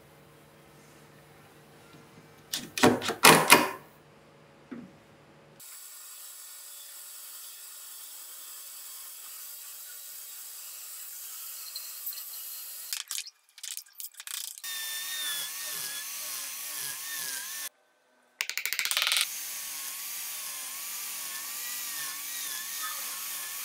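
A few sharp knocks and clatter about three seconds in, then a band saw running steadily through a thick hardwood block. Then an angle grinder carving the wood, its whine wavering in pitch as the disc bites.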